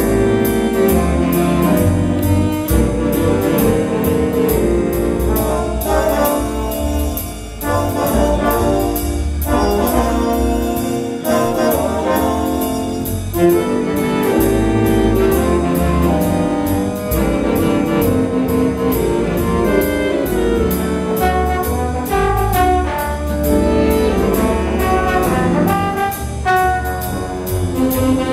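High school jazz band playing live: trumpets, trombones and saxophone over upright bass and drums, with a steady beat.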